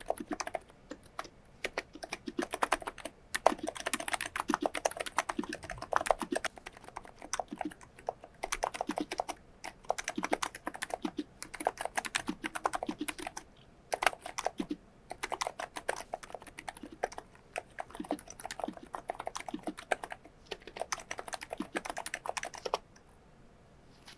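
Typing on a COX Endeavour tenkeyless keyboard with electro-capacitive (Topre-style) 35 g switches, PBT keycaps and lubed stabilizers. Quick runs of keystrokes come with short pauses between them, and the typing stops about a second before the end.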